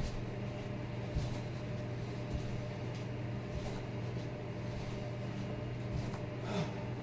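Steady low hum, with a few faint thumps and swishes from a person doing standing leg kickbacks in ankle weights.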